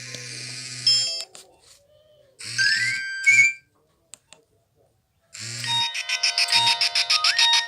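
Nokia 1200 mobile phone playing its built-in electronic tones. A tone cuts off about a second in. A short run of rising beeps follows about two and a half seconds in. After a brief silence, a ringtone with a rapid, evenly pulsing beat and a melody starts.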